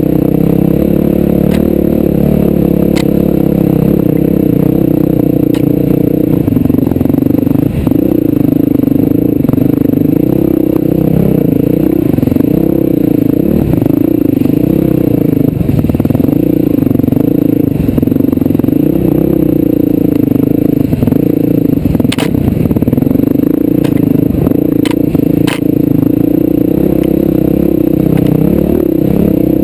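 Off-road vehicle engine running under varying throttle on a rough forest track, its pitch rising and falling continually, with occasional sharp knocks from stones or the chassis, the loudest about two-thirds of the way through.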